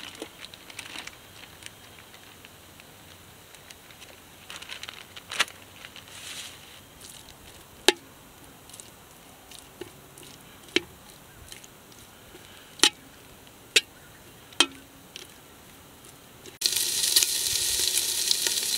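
A metal spatula clinks sharply against the can cooker's metal pot several times as cubed deer steak and bacon are stirred. Near the end a loud steady sizzling of the meat and bacon frying starts abruptly and is the loudest sound.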